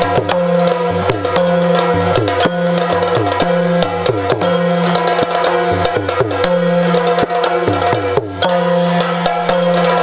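Yakshagana instrumental music: drums playing a steady repeating pattern that alternates higher and lower strokes, over a sustained drone, with many sharp strikes on top.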